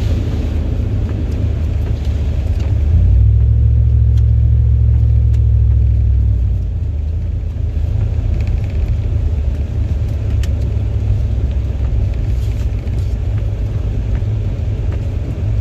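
Low road and engine rumble inside a moving car's cabin, growing louder for a few seconds about three seconds in, then settling back.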